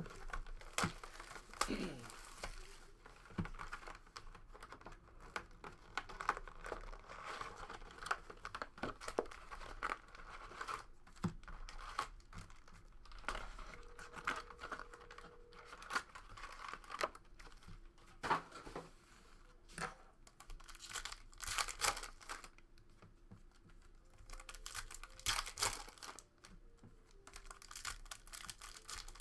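Plastic wrap and foil trading-card pack wrappers being torn open and crinkled, in irregular rustling bursts.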